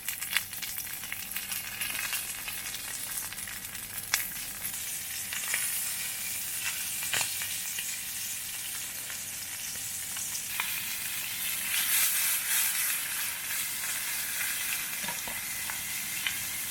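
Food sizzling as it cooks: a steady hiss with scattered crackles and pops.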